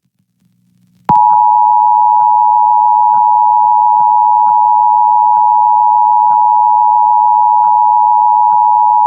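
Emergency Alert System attention signal: a loud, steady two-tone alarm just under 1 kHz. It starts sharply about a second in, after a brief silence, and cuts off suddenly about eight seconds later.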